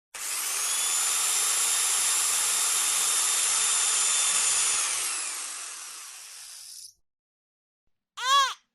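Electric drill running with a steady high whine, then spinning down and stopping after about five seconds. A baby's cry cuts in briefly near the end.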